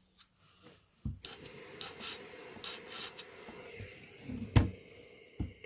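Clothes iron rubbing and scraping as it slides over fabric tape on an ironing board cover, with a sharp thump, the loudest sound, about four and a half seconds in and a lighter knock near the end.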